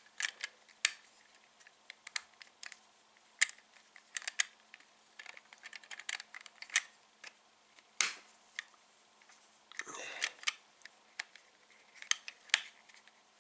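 Plastic building bricks clicking as small pieces are pressed onto a brick model by hand: irregular sharp clicks, sometimes several close together, with a brief rustle about ten seconds in.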